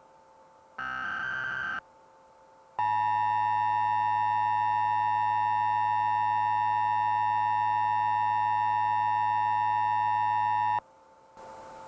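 Emergency Alert System broadcast tones: a one-second burst of warbling SAME digital data about a second in, then a loud, steady electronic attention tone held for about eight seconds that cuts off abruptly. These tones mark the start of the next tornado warning.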